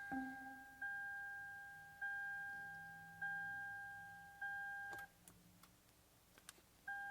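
2010 Lexus RX 350's dashboard warning chime sounding repeatedly, about once every 1.2 seconds, each chime fading away. It stops a little past the middle, a few light clicks follow, then the chime starts again near the end.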